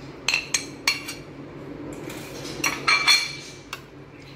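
Metal spoon scraping and clinking against a plate as soft boiled phulkiyan are pushed off it into a dish of yogurt. A few sharp clicks come in the first second, then a cluster of ringing clinks about three seconds in and one last click.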